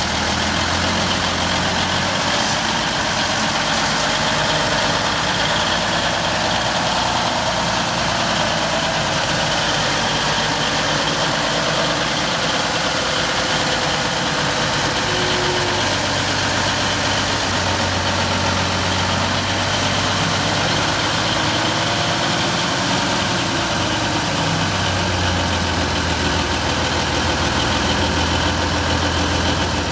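Engine of a six-wheeled army wrecker truck running steadily at low revs as the truck drives slowly and turns.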